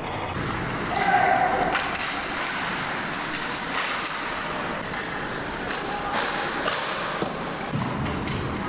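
Ice hockey play at close range: skates scraping the ice, with a run of sharp clacks and thuds from sticks, puck and boards spread through the scramble in front of the net.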